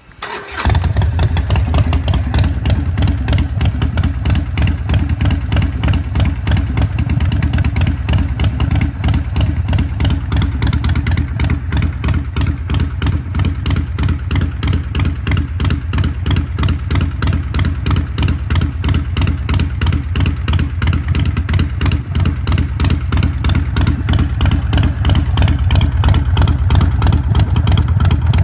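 2021 Harley-Davidson Iron 1200's air-cooled 1200 cc V-twin starting from cold through Vance & Hines Shortshots exhaust: a brief crank, it catches within about a second, then idles loudly with a steady, even pulsing beat.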